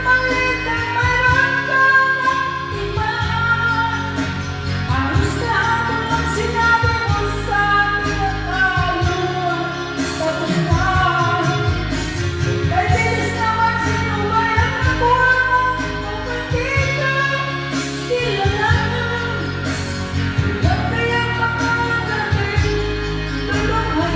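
A song: a voice singing a melody over instrumental backing music with a steady bass line.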